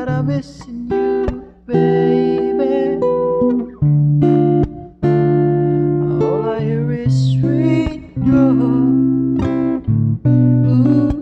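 Acoustic guitar strummed in ringing chords with a man singing along, recorded through a BM-800 condenser microphone as a singing test of the mic.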